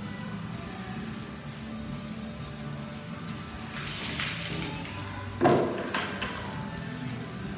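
Water poured from a bucket splashing over a bare steel car fender as it is rinsed after acid washing, followed about a second later by a sharp knock and two lighter knocks as the panel is handled. Background music plays throughout.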